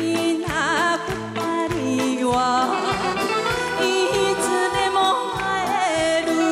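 Female vocals singing a Taiwanese Hokkien pop ballad with wide vibrato, over a backing band with a steady beat.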